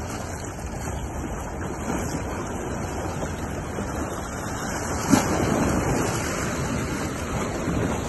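Small sea waves washing and splashing against shoreline rocks, a steady wash with some wind on the microphone. There is a sudden thump about five seconds in, followed by a somewhat louder surge of water.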